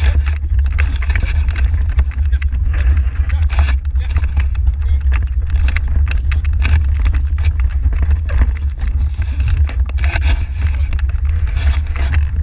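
Horse-drawn marathon carriage driven over grass: a steady heavy low rumble with constant clicking and rattling from the moving carriage.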